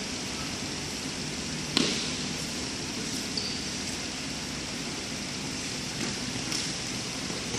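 A futsal ball struck hard once, about two seconds in, with the crack echoing in the indoor hall. A few lighter knocks of the ball come near the end, over the steady background noise of the court.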